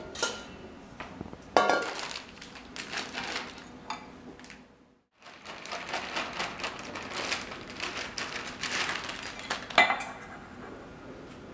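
Kitchen handling sounds: a plastic bag rustling and things knocking and clinking against a stainless steel mixing bowl, with a sharper knock near the end. The sound cuts out completely for about a second near the middle.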